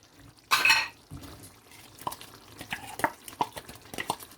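A spoon stirring a pot of cassava leaf stew, knocking and scraping against the pot in a run of sharp clinks that come faster near the end, after a short scraping rush about half a second in.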